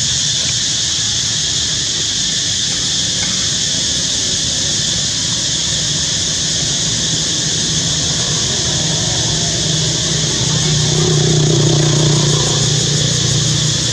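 Steady outdoor background noise: a constant high hiss-like drone over a low motor hum that swells about ten to twelve seconds in.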